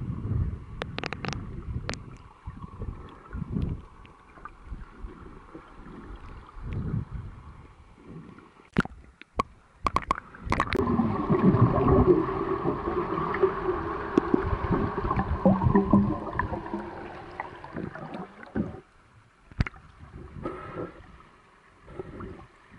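Muffled underwater sloshing and bubbling from a freestyle swimmer's kicks and strokes, heard through an underwater camera, with scattered sharp clicks. About ten seconds in it turns into a louder, denser churning of water that fades out a few seconds before the end.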